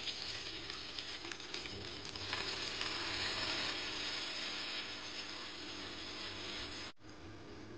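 A steady hiss with faint scattered crackles, cut off abruptly about seven seconds in.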